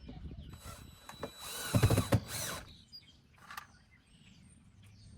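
Power drill driving a self-tapping screw into the water heater's cover: one loud run of a second or so with the motor pitch gliding, followed by a short click.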